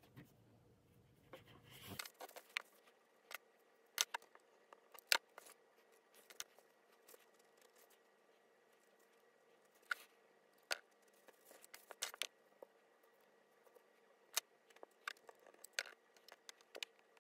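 Scattered sharp clicks and taps at irregular intervals from hands working craft pieces on a tabletop, with a brief rustle near the start.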